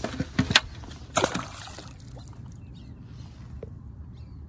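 Duck decoys splashing into water as they are set out from a pirogue: a few sharp splashes and sloshes in the first second and a half, then low, quieter water noise.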